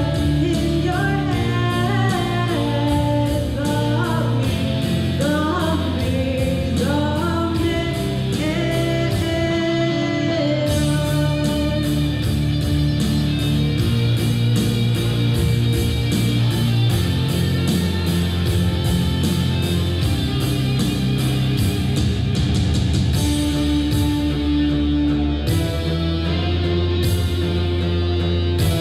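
A woman singing a rock song into a microphone over a loud accompaniment with guitar and a steady beat; her voice drops out after about eight seconds and the instrumental part carries on.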